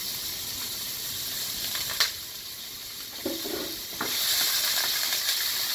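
Bacon pieces sizzling in hot olive oil in a stainless steel sauté pan, a steady hiss that grows louder about four seconds in. Two sharp knocks come as a wooden spoon stirs them in the pan.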